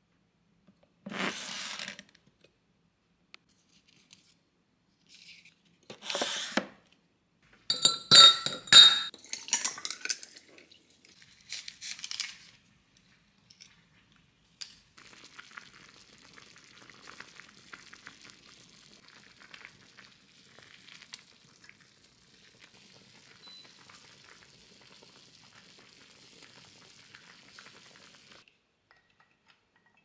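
Kitchen cooking sounds: a few clinks and knocks of dishes and utensils, one ringing like struck metal or glass. Then a faint, steady sizzle of food frying in a pan for most of the second half.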